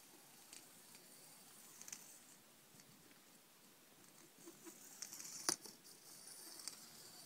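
Faint patter of a Sphero robotic ball rolling across the floor, with a few small clicks, the sharpest about five and a half seconds in.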